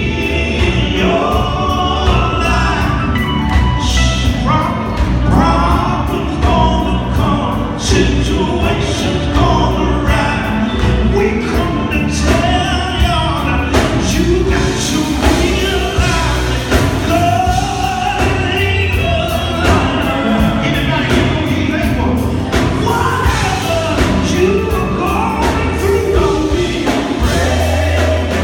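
Live gospel band: a male lead singer singing into a microphone over electric guitar and drums, with backing voices joining in, heard through the stage speakers in a large hall.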